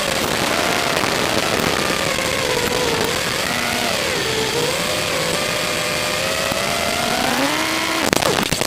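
Brushless motors and 5-inch props of an FPV racing quadcopter whining in flight over a steady hiss, the pitch swinging up and down with the throttle. Near the end the whine drops sharply and climbs again, with a short crackle.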